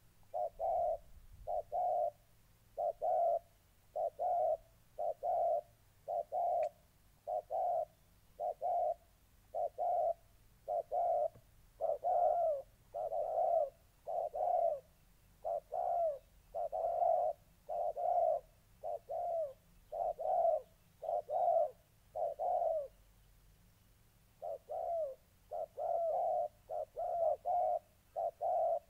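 Spotted doves cooing in a long run of short, repeated coos about a second apart, with a brief pause near the end. These are the territorial calls of a caged decoy dove and a wild male squaring up to it.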